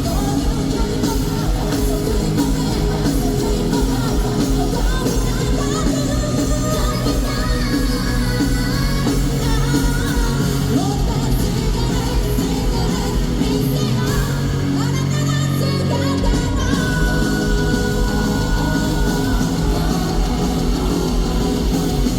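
A live rock band playing in an arena, with a woman singing lead over the full band, as heard from among the audience.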